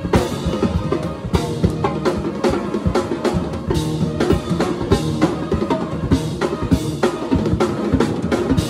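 Drum kit played fast, with quick snare and bass drum strokes and cymbal crashes, over a steady low backing; the drumming stops near the end.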